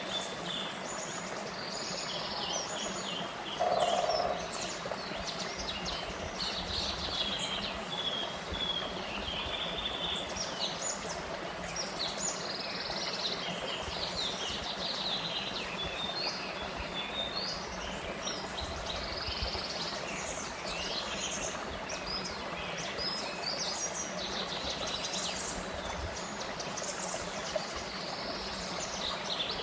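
Small forest stream running over a low rock ledge, a steady rush of water, with songbirds chirping throughout. About four seconds in there is one brief, louder, lower-pitched sound.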